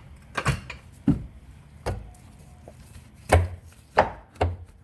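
About seven sharp, irregular knocks and clunks from hand work on a rear shock absorber mount and the floor jack under it. The loudest knocks come in the second half.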